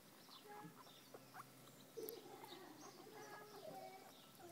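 Guinea pigs squeaking faintly, a scattering of short, soft calls.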